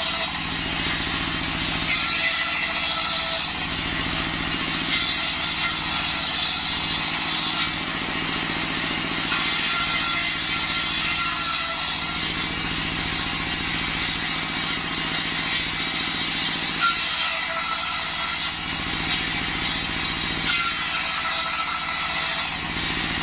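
Stationary single-cylinder diesel engine running steadily, driving a table circular saw that rips a waru-wood plank. The high cutting noise swells and eases every few seconds as the board is pushed through, with a brief higher whine now and then.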